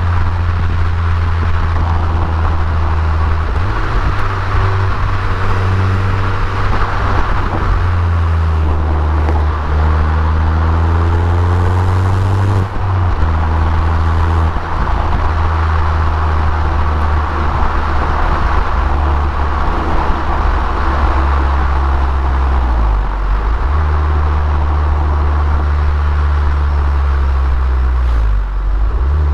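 Abarth Punto Evo's turbocharged 1.4-litre four-cylinder engine, in EsseEsse-kit tune with its stock Garrett GT1446 turbo, running as the car is driven. The engine pitch climbs for a few seconds and drops suddenly about twelve seconds in, then dips briefly twice near the end.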